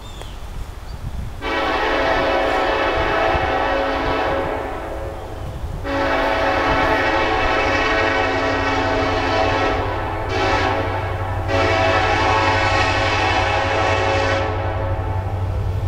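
Union Pacific SD70ACe diesel locomotive's air horn blowing the grade-crossing signal, long, long, short, long, as the train approaches. A low engine rumble grows beneath the horn in the second half.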